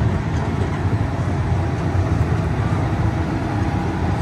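Jung Max circus train ride running along its steel track, a steady low rumble.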